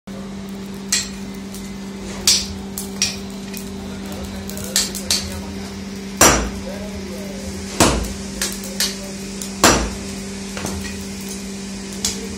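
A hand hammer striking a red-hot iron bar on a block anvil: about a dozen irregular, sharp metallic blows, the loudest ones in the middle. A steady low hum runs underneath.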